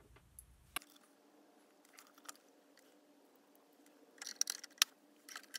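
Faint handling noises at a sewing machine: a few sharp small clicks and rustles as hands position fabric and thread under the needle, with a cluster of clicks between about four and five seconds in, over a faint steady hum. The machine is not stitching.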